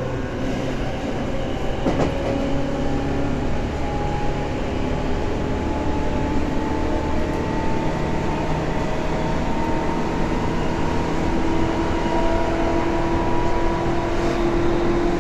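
Running sound heard on board a Tobu 9000 series electric train: steady rail rumble with a motor and gear whine that rises slowly in pitch as the train gathers speed. A single sharp click sounds about two seconds in.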